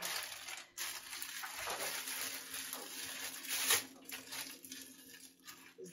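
Thin plastic produce bag rustling and crinkling as Brussels sprouts are taken out of it, with a louder crinkle about two-thirds of the way through.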